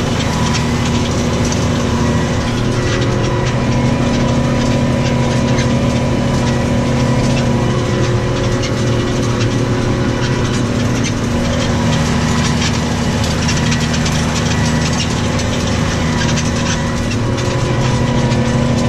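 New Holland T6.155 tractor's diesel engine running steadily under load while ploughing, with light clicking and rattling from the machinery.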